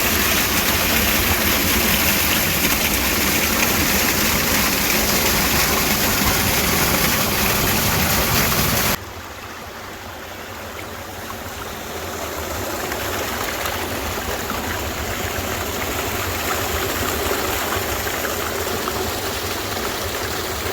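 Small waterfall and its stream rushing, a steady noise that cuts off suddenly about nine seconds in to a quieter rush of water that slowly grows louder.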